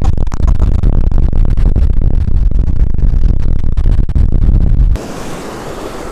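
Strong wind buffeting the camera microphone: a loud low rumble that keeps breaking up, dropping abruptly about five seconds in to a softer rush of wind.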